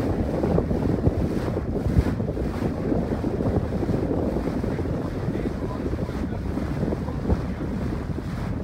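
Wind buffeting the microphone on a boat under way, over a steady low rumble of the boat moving through the water.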